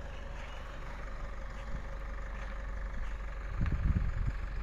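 A vehicle engine idling steadily, a low even hum, with a brief louder low rumble about three and a half seconds in.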